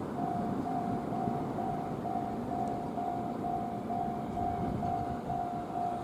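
Japanese level-crossing warning bell ringing, a single electronic ding repeated evenly about twice a second, starting just after the beginning. Underneath is a low background rumble.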